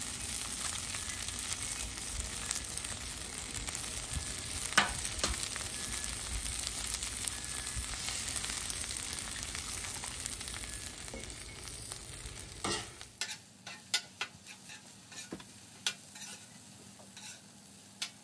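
Fried rice sizzling on a steel Blackstone flat-top griddle, with a few sharp taps as eggs are cracked. From about thirteen seconds in the sizzle is quieter, and a metal spatula clacks and scrapes on the griddle as the eggs are chopped and stirred into the rice.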